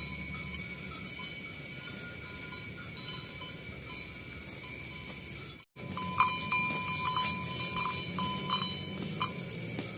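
Bells hung on grazing cattle clanking irregularly as the cows move. The clanks are faint at first. After a brief dropout just past halfway they become louder and more frequent, over a steady high-pitched background hum.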